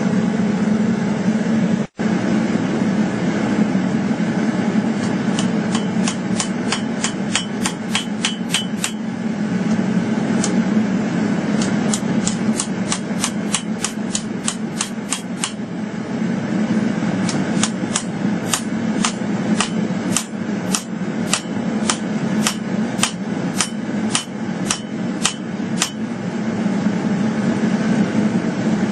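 Hand hammer striking hot steel on an anvil while forging a bowie knife blade, in several runs of quick, ringing blows about three a second. A steady low rushing noise runs underneath.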